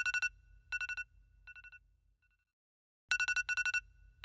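Mobile phone alarm tone: a rapid electronic trill on two steady pitches, each phrase a loud burst followed by softer, fading echoes. The phrase plays twice, starting again about three seconds in, sounding as a wake-up alarm.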